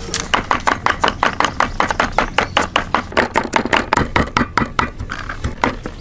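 Knife rapidly chopping shallots on a wooden cutting board, about five or six quick strikes a second, with a short break about five seconds in.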